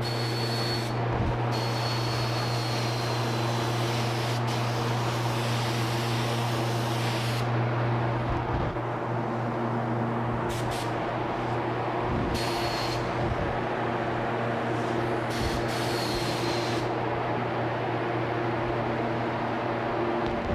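Spray gun spraying water-based paint, its hiss starting and stopping in bursts of several seconds as the trigger is pulled and released, over the steady hum of the spray rig's motor.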